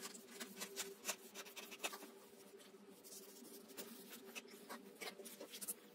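Scissors cutting through a sheet of paper: a run of quick, irregular snips with paper rustling, over a faint steady hum.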